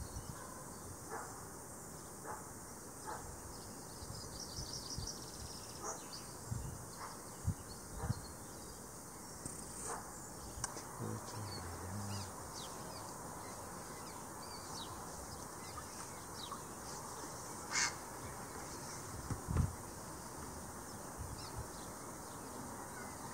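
Quiet outdoor ambience: a steady hiss with scattered bird calls, the loudest a single call about 18 seconds in. A few soft low thumps come in the middle.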